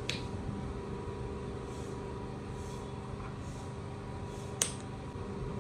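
Two sharp clicks of a plastic flip-top cap on a micellar water bottle, one at the very start and one about four and a half seconds in, over a steady low background hum.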